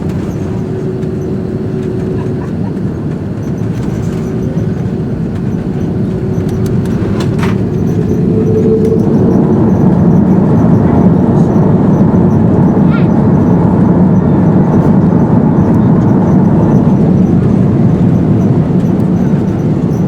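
Airbus A330-200 cabin noise: a steady roar of the jet engines and airflow, growing clearly louder about eight to ten seconds in and holding there.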